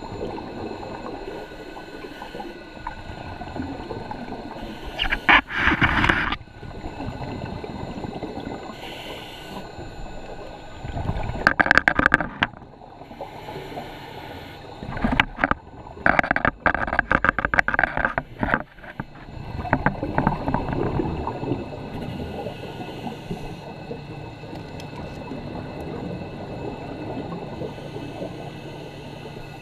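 Scuba diver breathing through a full face mask regulator underwater: loud crackling bursts of exhaled bubbles every few seconds, over a steady muffled underwater background.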